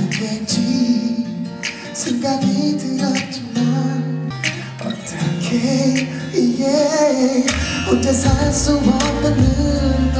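A pop song performed live: a man sings into a handheld microphone over band backing with guitar and regular drum hits. A deep bass line comes in about seven and a half seconds in.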